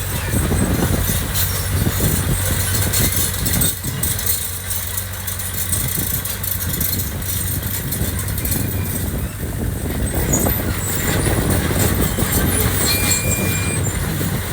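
Diesel engine of heavy earthmoving equipment running steadily under load, with occasional metallic knocks and clanks.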